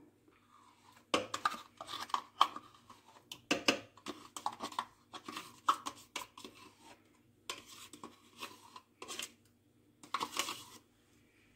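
Metal spoon scraping yogurt out of a plastic yogurt cup and knocking against the rim of a plastic blender beaker: a string of irregular scrapes and clicks, with a longer scrape about ten seconds in.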